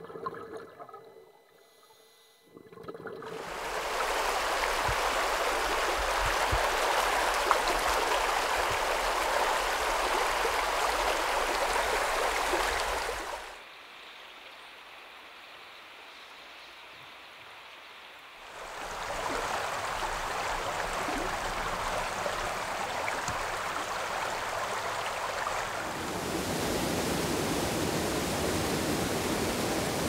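Creek water rushing and gurgling over rocks, a steady hiss of flowing water. Nearly quiet for the first few seconds, then loud; it drops to a softer flow for about five seconds in the middle before the loud rush returns.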